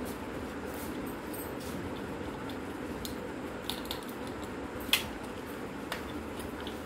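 Small clicks and knocks of an old compact camera's plastic body and parts being handled and worked apart, with one sharp snap about five seconds in, over a steady background noise.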